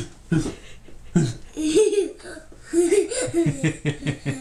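A man and a young child laughing in several short bursts.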